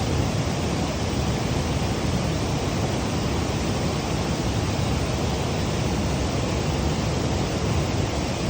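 Steady rushing of water, loud and even with no breaks.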